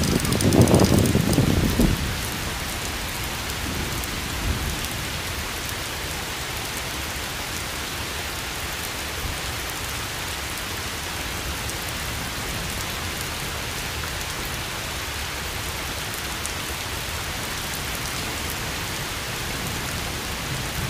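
Steady, even hiss of water, with a low rumble of handling or wind on the microphone during the first two seconds.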